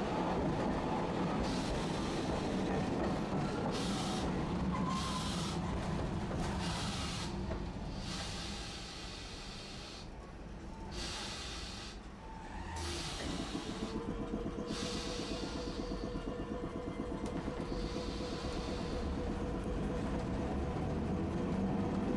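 Tosaden streetcar running along street track: a steady low rumble of wheels and motor that fades about halfway through and builds again, with a hum coming in toward the end.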